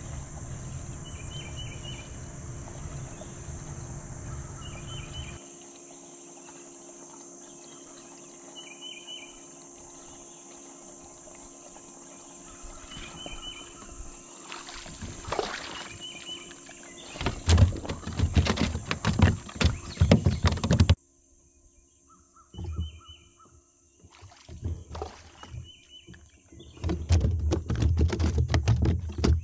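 A steady, high insect drone with a bird's short call repeating every few seconds. Loud knocks and rattles of gear being handled on a plastic kayak come in bursts a little past halfway and again near the end. The insect drone stops abruptly about two-thirds through.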